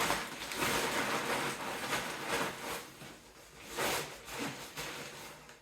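Irregular rustling and scraping of fabric as gear is handled and stuffed into a backpack, fading toward the end.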